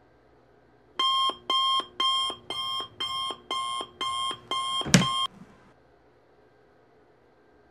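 Electronic alarm beeping about twice a second, starting about a second in. A sharp knock near the end is the loudest sound, and the beeping stops right after it.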